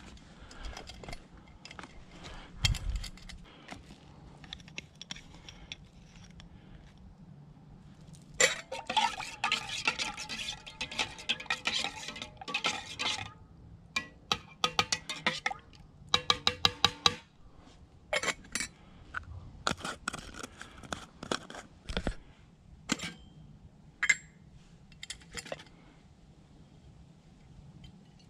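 Stainless-steel camp cookware clinking and scraping: a metal utensil stirring and tapping in a small pot, with runs of quick, sharp clinks.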